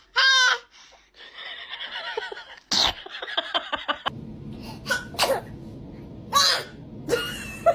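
A baby sneezing several times: short, sharp bursts a second or two apart, the first one a high-pitched squeaky sneeze.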